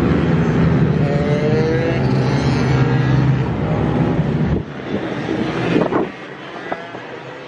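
Pit bike engine running hard with its pitch rising as it revs. About four and a half seconds in it drops much quieter, with one short loud rev near six seconds.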